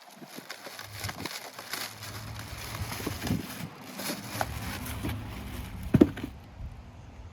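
Objects being handled: scattered clicks, knocks and rustling over a low steady hum, with one sharp knock about six seconds in.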